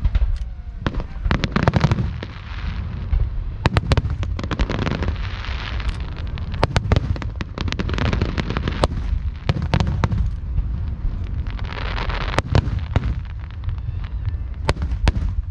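Aerial fireworks going off in quick succession: many sharp bangs and cracks over a low rumble, with several spells of crackling hiss.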